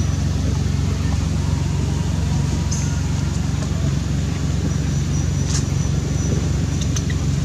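Steady low motor hum, like an engine idling, with a few faint short high chirps over it.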